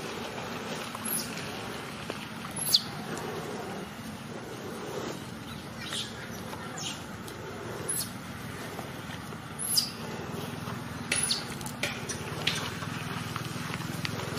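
About a dozen short, sharp high-pitched animal calls, each a quick downward sweep, spaced a second or two apart over a steady low background hum.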